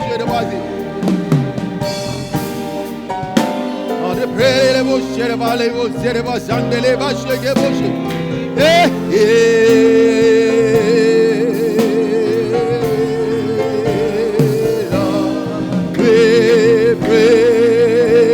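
Slow gospel worship music with singing. A voice holds long, wavering notes, most plainly from about nine seconds in and again near the end.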